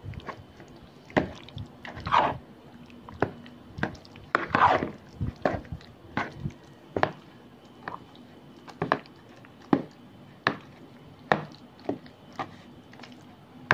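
A spoon stirring a thick, creamy salad mixture in a plastic bowl: irregular wet squelches, with the spoon knocking and scraping against the bowl roughly once a second.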